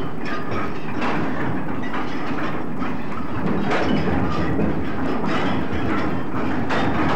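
Old recording of a ferry's two-cylinder compound horizontal reciprocating steam engine running, a steady rumble with irregular knocks.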